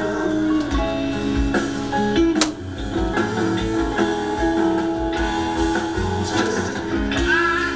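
Background music with guitar over a steady bass beat, with one sharp click about two and a half seconds in.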